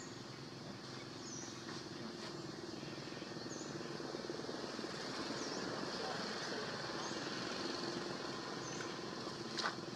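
Outdoor ambience: a steady low motor hum with a bird giving short high chirps every couple of seconds, and one sharp click near the end.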